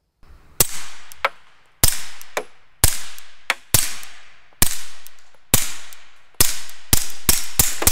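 PTR Archon Type B Gen 2 9mm pistol firing about eleven suppressed shots of 147-grain ammunition through an AB Suppressor Raptor F4L carbine can. The first seven come roughly a second apart, then four come quicker near the end. The pistol cycles each round despite the heavy suppressor having no booster piston.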